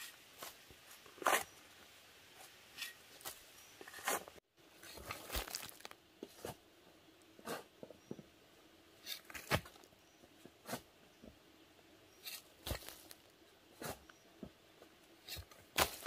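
A hoe chopping into loose, clay-rich soil and dragging it, with irregular crunching strikes about once a second and clods of earth tumbling.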